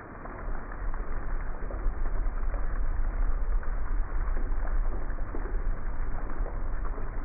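Heavy rain falling steadily on grass and pavement, a dense hiss of drops. About half a second in, a low rumble comes up underneath and makes it much louder.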